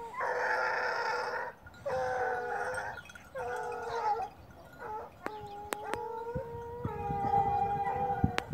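Pack of Ariégeois scent hounds baying in long drawn-out calls, several voices overlapping, with short gaps between calls in the first half and a nearly continuous two-voiced bay in the second half.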